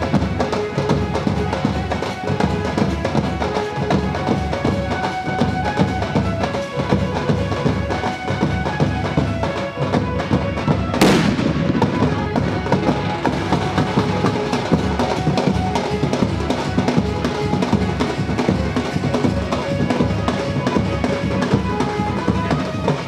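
Loud, drum-heavy procession music with a steady beat and a held melody line. One sharp firecracker bang cracks out about halfway through.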